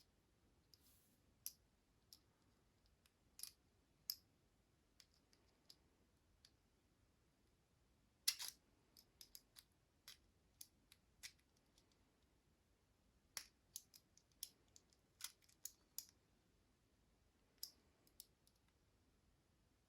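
Faint, irregular small metallic clicks and ticks with quiet between them, the loudest about eight seconds in: a flathead screwdriver prying at the C-clip on the core of an American Lock AL1106 padlock, a clip that takes a while to come off.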